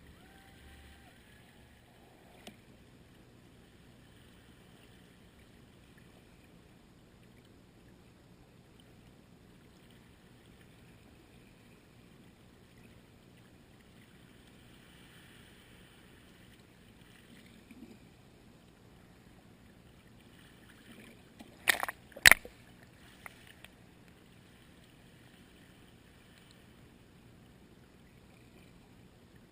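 Faint steady hiss, broken about two-thirds of the way through by a quick cluster of sharp, loud knocks.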